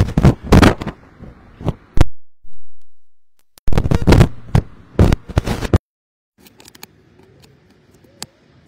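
Loud crackling and thumping noise from something rubbing or buffeting the phone's microphone, coming in two clusters of bursts. The audio cuts out suddenly to dead silence between them. Near the end only a faint hiss with a few clicks is left.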